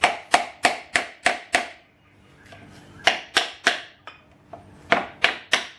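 Quick, sharp hammer taps on a seal driver, knocking a new rear seal into an automatic transmission's aluminium extension housing. The taps come in three runs, about three a second, with short pauses between, working the seal in evenly before it seats.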